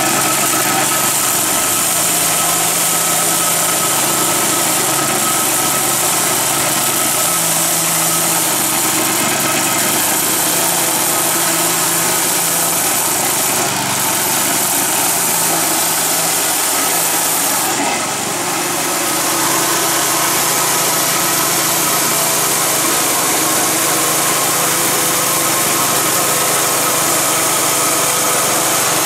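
Gas-powered walk-behind concrete scarifier running with its small engine at steady speed while its cutter drum chews into the concrete slab, giving a loud, continuous grinding rattle. The level dips briefly about two-thirds of the way through.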